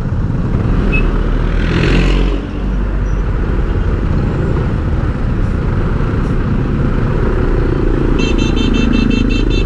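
Steady engine and road rumble of a vehicle moving in traffic, with another vehicle swelling past about two seconds in. Near the end comes a rapid, high-pitched pulsing beep.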